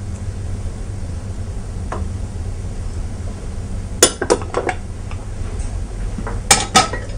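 Kitchen utensils clinking against dishes: a few short, light clinks in two small clusters, about four and about six and a half seconds in, over a steady low hum.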